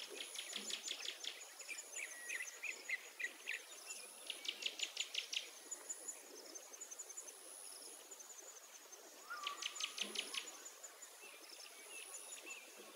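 Faint woodland ambience: several short bursts of rapid bird chirping trills over a thin, steady high-pitched insect buzz.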